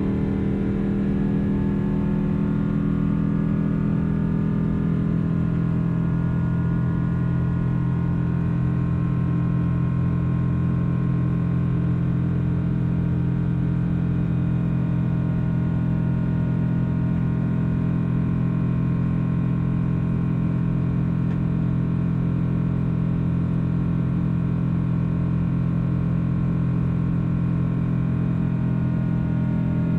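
Boeing 777-200 jet engines heard from inside the passenger cabin: a steady low drone with a fainter whine above it, continuous and even.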